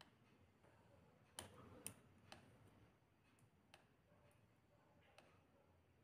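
Near silence: room tone with a few faint, scattered clicks, the loudest two about half a second apart roughly one and a half seconds in.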